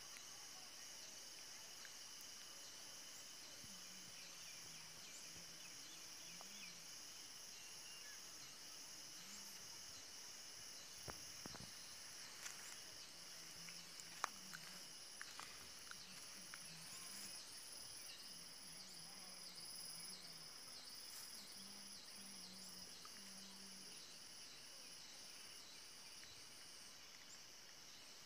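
Faint insect chorus: a steady high-pitched trilling with a fast, even pulse, and a few faint clicks near the middle.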